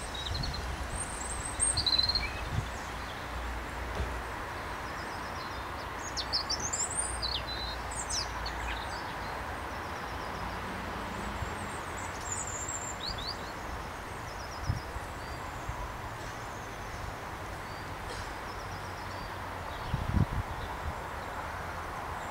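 Small birds chirping and calling on and off over a steady outdoor hiss with low wind rumble, and a few dull low thumps, one about two seconds in and a couple near the end.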